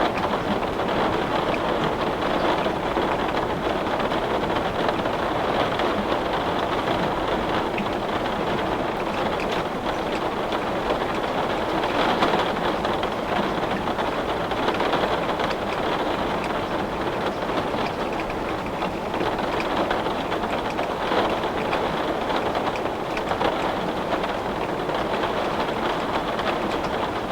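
Heavy rain falling steadily on a window, a dense even patter with scattered sharper drop hits.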